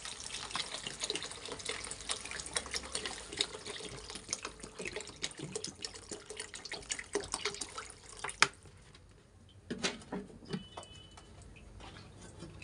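Water poured from a bottle into a kadai of fried vegetables and chicken, splashing steadily for about eight seconds and ending with a sharp click. A few separate knocks follow in the quieter stretch after the pour stops.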